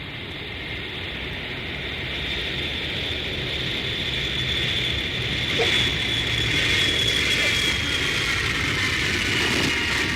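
Airplane engine noise that grows louder over the first half and then holds: a steady low rumble under a high whine that slowly falls in pitch.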